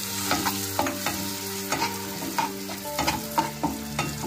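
Spatula stirring and knocking against a kadhai, irregular knocks with a short ringing after each, over a steady sizzle as chopped tomato fries with spring onion whites in melted butter.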